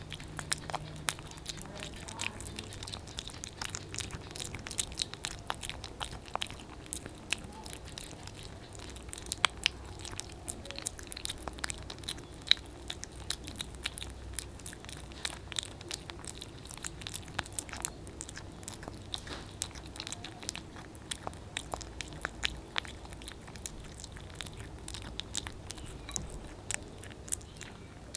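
Two kittens eating wet food from a plate, close up: a dense, irregular run of sharp wet clicks and smacks from their chewing and lapping.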